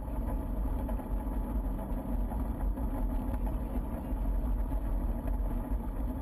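Steady rumble of bicycle tyres rolling over a gravel path, mixed with wind buffeting a camera mounted on the moving bike.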